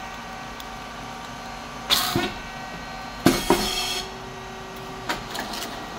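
Rice cake popping machine running through a cycle: two sharp pops, each with a short hiss, about two and three seconds in, over a steady machine hum.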